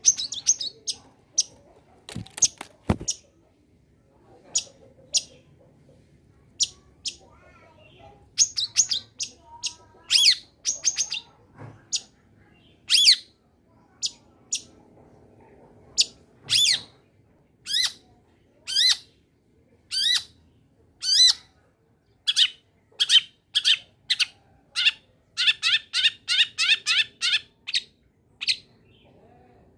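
Long-tailed shrike (cendet) singing in short, sharp, chirping notes spaced a second or so apart, breaking into a fast run of about six repeated notes a second near the end.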